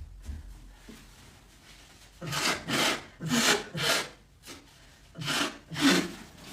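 A woman coughing repeatedly: about six harsh coughs in two runs, a sign of a persistent cough.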